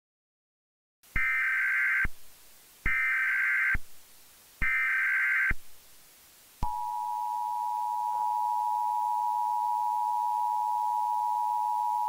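Emergency Alert System SAME header: after about a second of silence, three roughly one-second bursts of buzzy digital data tones, then the steady two-tone EAS attention signal sounding for about five seconds. It marks the start of an emergency alert broadcast.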